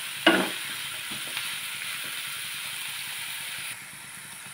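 Chopped vegetables sizzling in hot oil in a non-stick frying pan, with one spatula scrape through them about a quarter second in. The steady sizzle turns quieter near the end.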